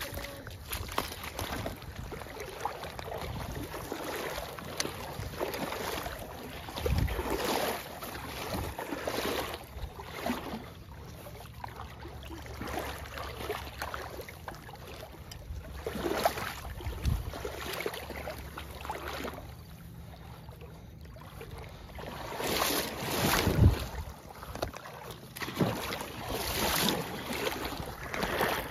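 Wind buffeting the microphone over shallow shoreline water, rising and falling in gusts, with a few short louder thuds.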